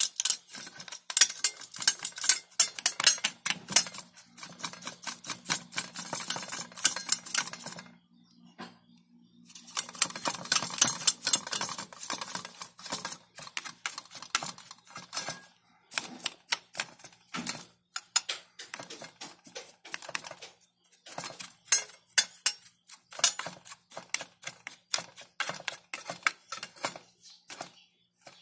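Brush bristles scrubbing dust off a computer power supply's circuit board and aluminium heatsink fins, a fast, dense clatter of scratchy clicks in spells. There is a brief break about eight seconds in, and shorter ones later. A faint low hum runs underneath for the first ten seconds or so.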